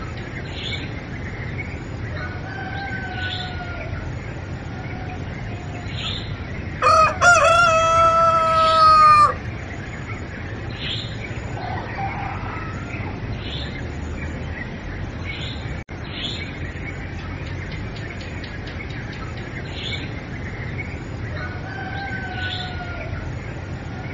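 A rooster crows once, a long call of about two seconds, over a steady background of small bird chirps that repeat every second or so. A fainter, shorter bird call comes twice, near the start and near the end.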